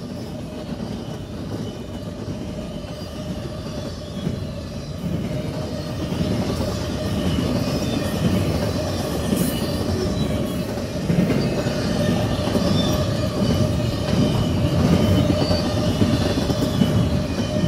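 Double-stack intermodal container cars rolling past: steel wheels rumbling and clicking over the rails, with a steady whine over the rumble. The sound grows steadily louder.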